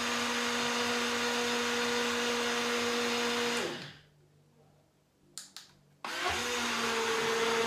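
BlendJet 2 portable blender running its self-clean cycle with soapy water inside: a steady motor whine that winds down and stops a little past halfway. Two short clicks follow, then the motor starts again suddenly and runs on.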